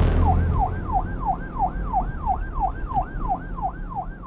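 Siren sounding a fast yelp, its pitch sweeping up and down about three times a second over a steady low rumble, fading away near the end.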